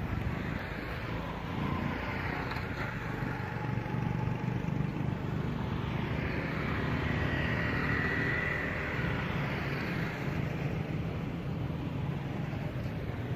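Steady road traffic noise from motorbikes and cars on a nearby road, with one vehicle swelling louder and fading away about halfway through.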